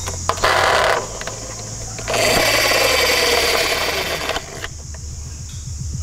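Toy ambulance being handled, giving two bursts of mechanical whirring: a short one about half a second in, then a longer, louder one from about two seconds in.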